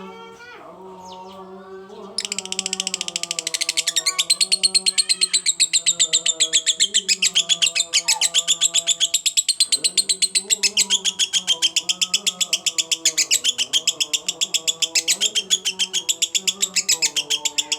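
Lovebird singing a long 'konslet' ngekek: a fast, unbroken string of sharp high chirps that starts about two seconds in and keeps going without a pause.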